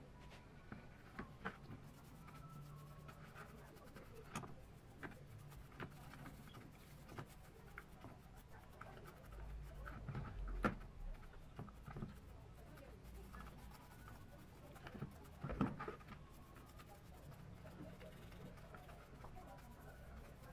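Paintbrush bristles scrubbing a small brass gear assembly in a metal pan of cleaning liquid: faint scratchy brushing with scattered light clicks, and a few sharper knocks of the part against the pan, the loudest about ten and fifteen seconds in.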